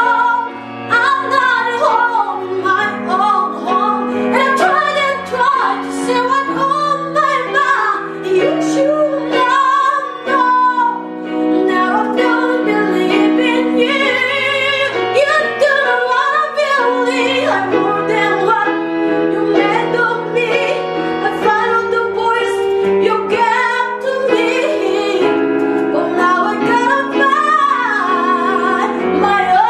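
Music with a woman singing a flowing melody over sustained instrumental accompaniment.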